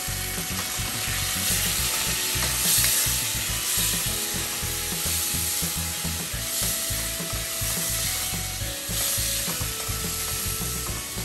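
Beef and onions sizzling as they fry in a pot, with a spoon stirring through them; a little water has just been added to keep them from burning.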